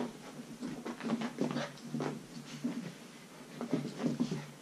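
Two Belgian Malinois puppies playing and scuffling on a carpeted floor: scattered soft scratches and rustles.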